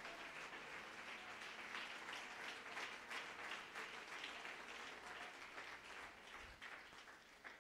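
Faint applause from a church congregation, a haze of many hand claps that thins out and dies away near the end.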